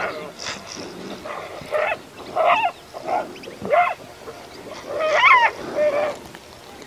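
Animal yelps and short cries from a scuffle between two honey badgers and a pack of wild canids: about seven sharp calls that bend up and down in pitch, the loudest at the start and about five seconds in.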